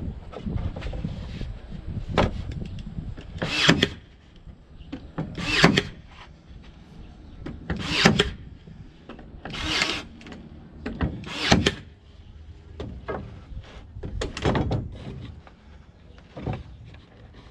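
Ryobi 18V One+ AirStrike cordless brad nailer driving 18-gauge brads into wood, firing about seven times, roughly every two seconds, each shot a short sharp snap, with quieter handling and shuffling of the tool and board between shots.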